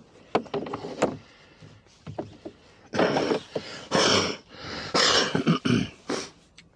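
Handling noise from gear being worked in a small boat: a few sharp knocks, then four rough scraping rustles about a second apart.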